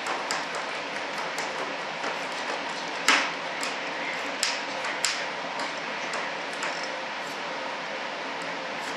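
Light clicks and taps scattered over a steady hiss, the loudest about three seconds in.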